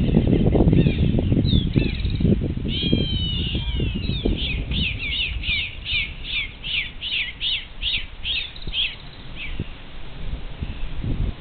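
A bird calling: a few tangled calls, then a run of about a dozen quick, repeated down-slurred notes, roughly two and a half a second, that stop about two-thirds of the way through. Gusty wind rumbles on the microphone in the first few seconds.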